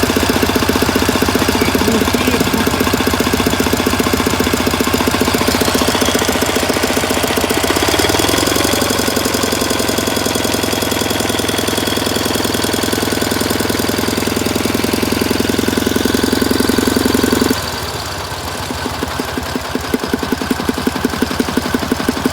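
Dnepr K-750 motorcycle's flat-twin engine running with the throttle opened, its note shifting about 8 seconds in, then dropping suddenly back to a slow, uneven idle near the end. The engine makes knocking bangs that the owner hears as coming from the air filter, and he is unsure whether they mean an engine fault.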